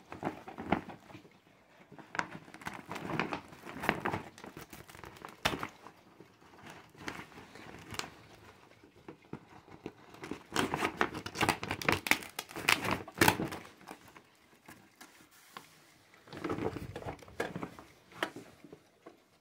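Laminated plastic shopping bag being handled and opened, its shiny material crinkling and rustling in irregular bursts, heaviest about halfway through and again briefly near the end.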